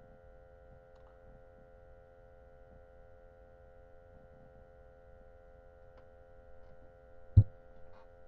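Low, steady electrical hum made of several constant tones over faint hiss, with a single short thump about seven seconds in.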